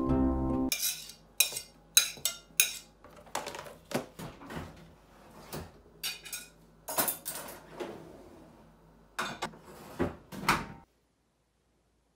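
Crockery and cutlery clattering and clinking in irregular bursts as they are handled at an open dishwasher. The sound cuts off suddenly near the end.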